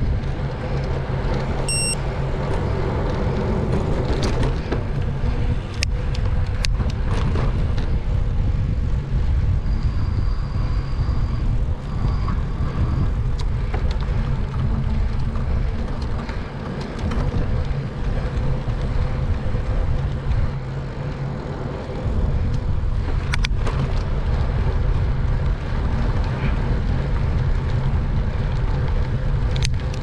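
Steady wind rumble on a bicycle-mounted action camera's microphone with tyre and road noise from riding. A few sharp clicks, and a short high beep about two seconds in.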